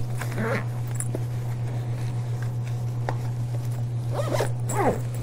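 Zipper on a Mares Cruise Journey carry-on backpack being pulled closed around its compartment, with a steady low hum underneath.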